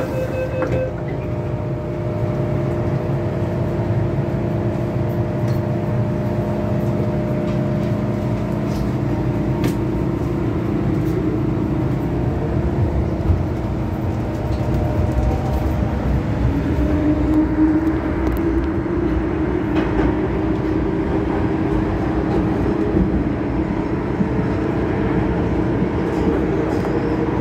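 Inside a Hong Kong MTR M-Train (Metro Cammell electric multiple unit) in motion: a steady rumble of wheels on track under a hum of traction motors. In the second half a motor whine rises steadily in pitch as the train picks up speed. A door-closing chime dies away just under a second in.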